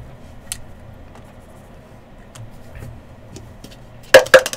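A few faint light clicks, then a loud clattering rattle of small hard objects starting near the end.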